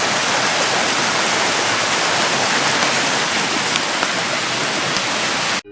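Heavy rain falling in a steady hiss, with a few sharper drop clicks. It cuts off suddenly near the end.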